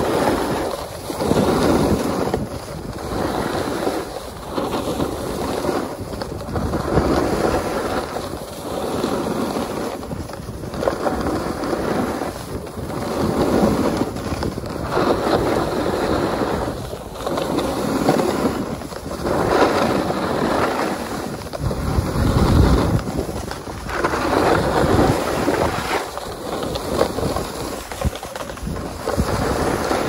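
Snow scraping and hissing under the edges of the filming rider's board or skis as they carve turns down a groomed slope, swelling and fading with each turn every second or two, with wind rushing over the microphone.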